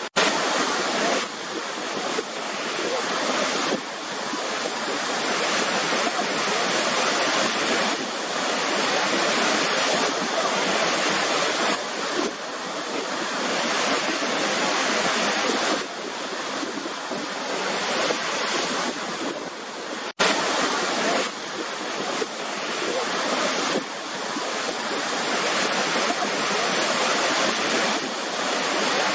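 Waterfall: a steady, dense rush of falling water. About two-thirds of the way through it cuts out for an instant and resumes, as at a splice between clips.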